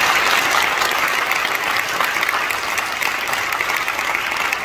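Audience applauding: many hands clapping together in a loud, steady ovation.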